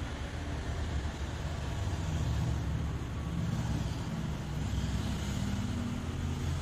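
A motor vehicle engine running steadily, a low rumble, with a faint engine tone coming up from about two seconds in.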